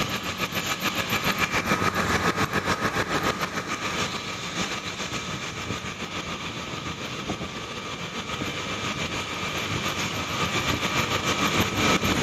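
Power drill running a tungsten-carbide-tipped hole saw as it cuts: a steady whine with a fast, even chatter. It gets a little quieter in the middle and louder again near the end.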